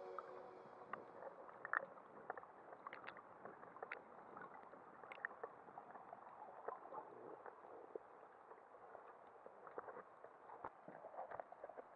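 Faint underwater ambience heard through an action-camera housing: a low hiss with scattered small clicks and crackles.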